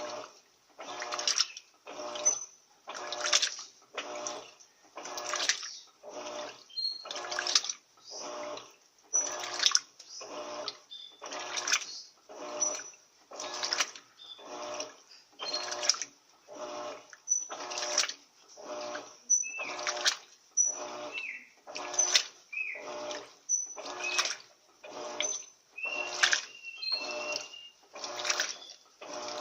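13 kg top-loading turbo washing machine agitating a load of bedding in water at the high water level: a regular swish of sloshing water about once a second as the agitator turns back and forth.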